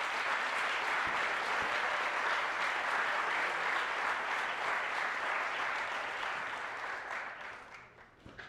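Audience applauding, dense and steady, dying away in the last second or so.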